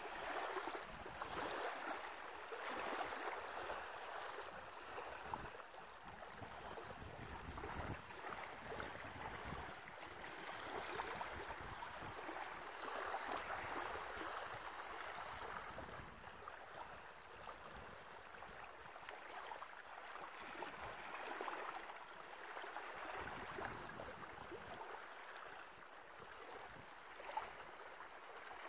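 Small waves washing onto a sandy shore, a steady hiss of water that swells and eases every few seconds.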